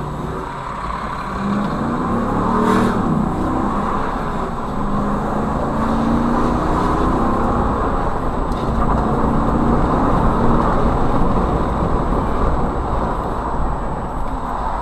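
A car's engine with tyre and road noise, heard from inside the moving car. The engine note rises several times as the car accelerates.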